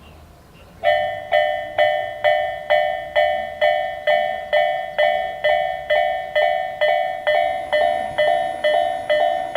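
Japanese railway level-crossing alarm starting up about a second in: an electronic bell striking a ringing 'kan-kan' tone a little over twice a second, which signals that a train is approaching. In the second half a second crossing sounder with a slightly different tone comes in, its strikes falling between the first one's.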